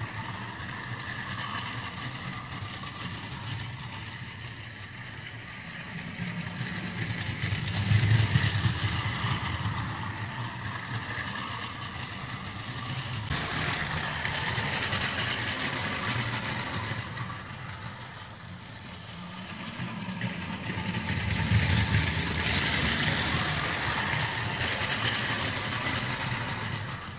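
Custom Lego 0-4-2 narrow-gauge tank engine running on plastic Lego track, a steady mechanical whirr and rattle that grows louder three times as the train passes close, then fades as it goes round the loop.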